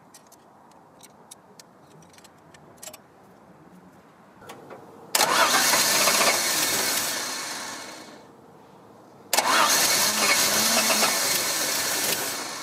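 A 1962 Ford Falcon's straight-six engine being started twice, just after a new electronic distributor and Bosch high-output coil were fitted: two sudden bursts of engine noise about three seconds each, the first about five seconds in and the second about nine seconds in, each fading away. A few faint clicks come before them.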